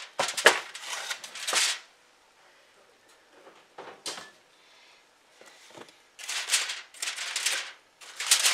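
Foil-covered glass baking dish set down on a wooden cutting board with a sharp knock and a rustle of foil, and the oven door shut with a short knock about four seconds in. From about six seconds on, aluminium foil crinkling loudly as the cover is peeled back off the dish.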